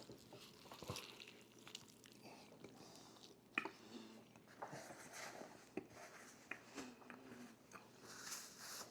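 Soft close-up eating sounds: quiet chewing and crunching with small scattered mouth clicks, one sharper click about three and a half seconds in.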